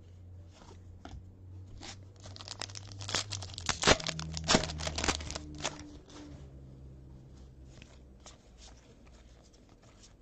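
A football trading-card pack's wrapper being torn open and crinkled: a dense crackling and tearing that builds to its loudest in the middle, then fades to occasional rustles.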